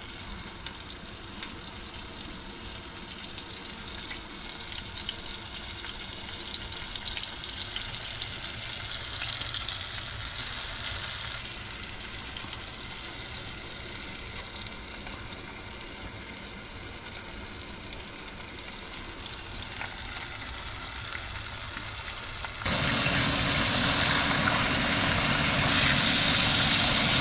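Flour-dusted grey snapper pieces frying in hot oil in a stainless steel pot: a steady sizzling hiss. It gets clearly louder near the end.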